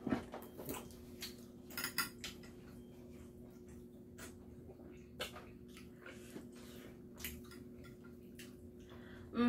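Scattered light clicks and clinks of metal chopsticks against plates and bowls during a meal, over a faint steady hum.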